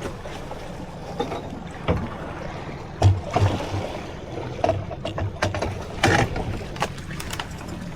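Small boat at sea: a steady wash of water and wind noise, with a few irregular knocks, loudest about three and six seconds in.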